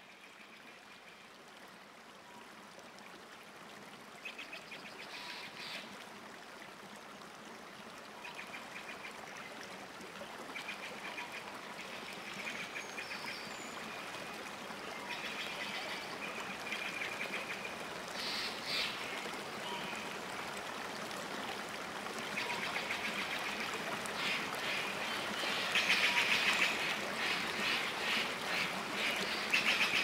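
Birds calling: repeated short, buzzy chattering calls that grow louder and more frequent toward the end, over a steady hiss like running water.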